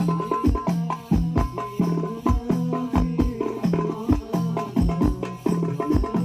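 Hadroh percussion ensemble playing a fast, steady instrumental rhythm over a sound system: hand-struck frame drums with deep bass-drum hits and jingling percussion, no singing.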